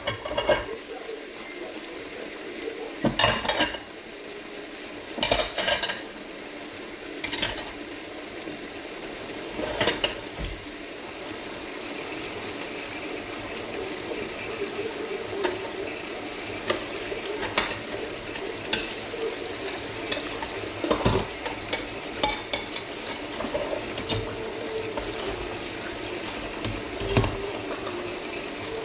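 Dishes and cutlery clattering as they are washed at a kitchen sink and set in a dish rack, a handful of sharp clinks and knocks scattered through, over a steady hiss.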